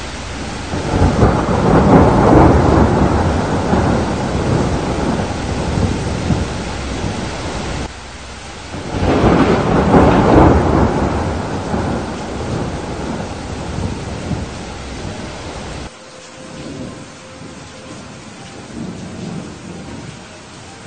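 Thunderstorm: two long rolls of thunder over steady heavy rain. The first builds about a second in and fades, the second rises about nine seconds in and dies away, and each cuts off suddenly, leaving the rain with fainter rumbles near the end.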